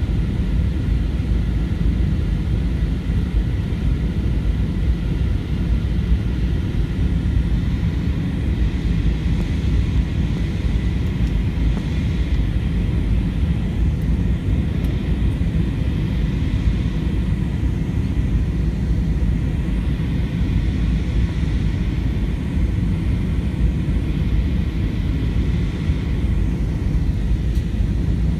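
Airbus A320-200 cabin noise on approach: a steady low rumble of engines and airflow through the fuselage, with a few faint steady tones above it.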